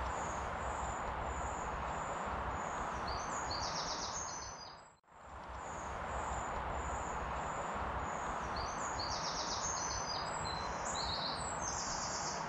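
Steady rushing noise of flowing river water, with a small bird singing high, quick repeated notes and short trills over it. The sound drops out briefly about five seconds in.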